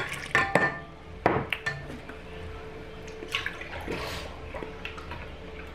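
Knocks and clinks of a glass measuring cup handled against a stainless steel mixing bowl in the first second and a half, the loudest about a second in. Then milk pours from a plastic gallon jug into the measuring cup.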